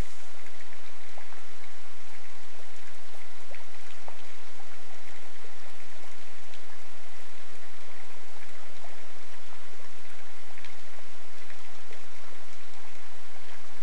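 Steady rain falling: an even hiss with many small, sharp drop ticks scattered through it.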